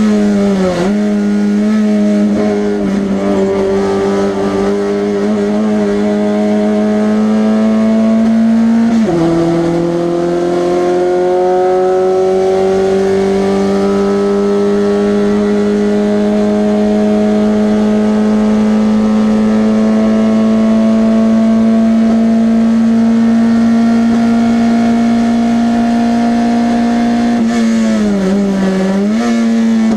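Race car engine in a 1300 class running hard at high revs. About nine seconds in its pitch drops sharply at a gear change, then climbs slowly and steadily under acceleration. Near the end it dips briefly and picks up again.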